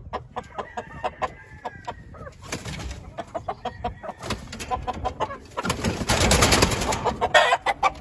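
Gamefowl chickens clucking in a pen, with repeated short knocks and rustling; a louder rush of noise and a sharper call come near the end.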